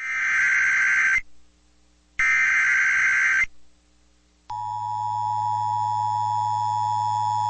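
Emergency Alert System broadcast tones. Two loud SAME header data bursts of shrill digital warbling, each about a second long with a second's gap between them, come first. About four and a half seconds in, the steady two-tone EAS attention signal begins, which precedes the spoken warning.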